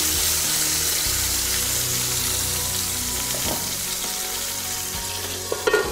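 Whole sea bass sizzling in hot oil in a frying pan, just turned over with a spatula; a steady frying hiss that slowly dies down.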